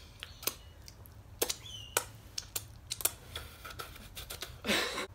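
Close-up eating noises: irregular sharp clicks of lip smacks, finger licking and chewing. A short rush of noise comes near the end.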